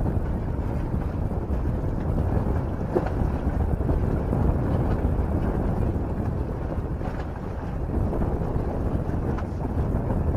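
Steady wind buffeting the camera microphone: a continuous low rumble, with a few faint ticks.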